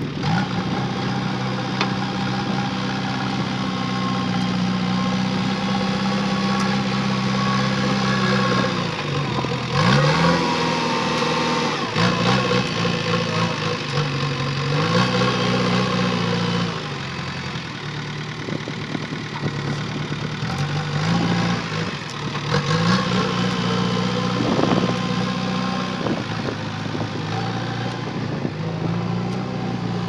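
JCB 3DX backhoe loader's diesel engine running under working load while the machine drives and handles sand with its front loader bucket. The engine note rises and falls several times as it is revved and eased off.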